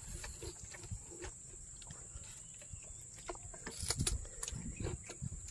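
A plastic bag of crackers rustling as a hand picks through it, with crunchy chewing: scattered small crackles that cluster about four seconds in, over a steady high hiss.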